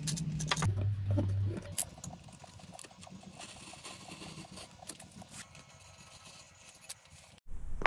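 Utility knife cutting a rubber pad against the edge of a square stainless steel tube: a run of small, quick ticks and scraping from the blade. There is louder handling clatter with a low hum in the first two seconds, and the sound cuts off suddenly near the end.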